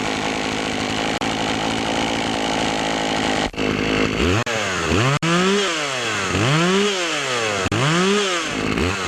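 Poulan Pro PP4620AV two-stroke chainsaw engine running steadily at speed, then, after a brief break, revved up and let drop back three times. It runs on a freshly cleaned air filter that had been clogged, which held the saw back from full rpm and made it run as if the choke were on.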